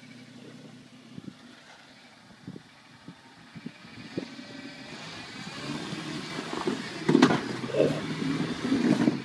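Toyota Land Cruiser FZJ80 crawling up a rock ledge: its 4.5-litre straight-six runs low and steady at first, with scattered knocks of tyres and underbody on rock. The noise then swells, with two loud sharp knocks in the last couple of seconds.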